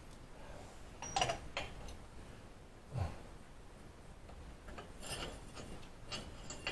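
A few light clinks and knocks of tools or metal parts being handled, with a soft thud about three seconds in and a light clatter near the end.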